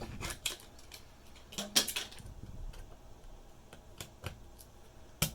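Small sharp clicks and taps of a DDR4 laptop memory module being pushed down into its slot, with a louder cluster of clicks about two seconds in and another sharp click near the end.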